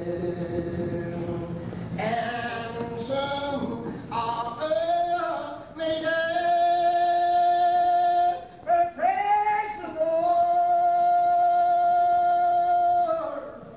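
Unaccompanied hymn singing in the slow Old Regular Baptist style. The voices slide between pitches and then hold long notes, two of them lasting two to three seconds each, with a short breath break between them.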